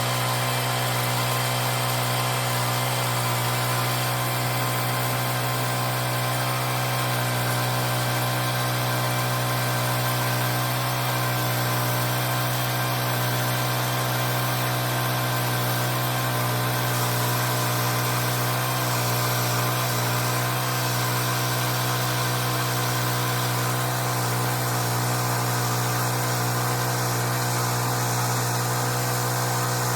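Homemade sawmill's motor running at a steady speed, a constant low hum with layered steady tones and no change in pitch or load.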